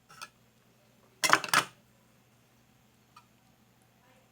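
A short clatter of a metal kitchen utensil against cookware about a second in, with a fainter click at the start.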